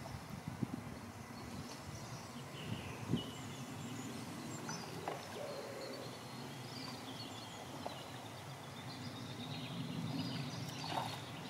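Small birds chirping and calling in the background over a low wind rumble, with a few faint knocks or clicks.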